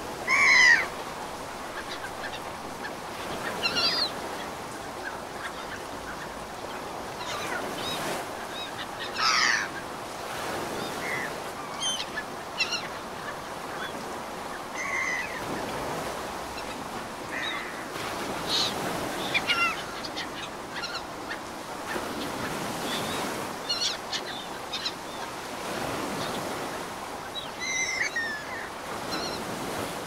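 Birds giving short honking calls every few seconds, the loudest just after the start, over a steady wash of ocean surf.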